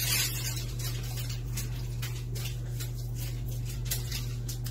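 Irregular soft crackling ticks, a few a second, like a crisp tortilla chip being chewed, over a steady low hum.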